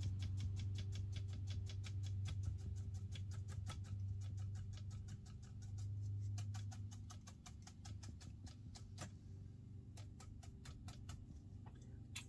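Hake brush being dabbed on watercolour paper, a fast run of dry taps, several a second, that thins to scattered taps about halfway through. A low steady hum runs underneath.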